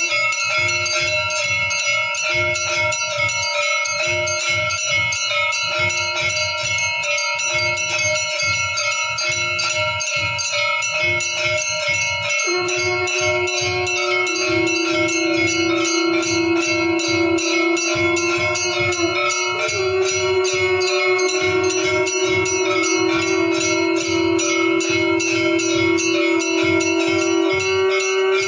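Temple bells rung rapidly and continuously for an aarti, the strikes coming in a fast, even rhythm. A low held tone under them breaks up in the first half and holds steady from about halfway in.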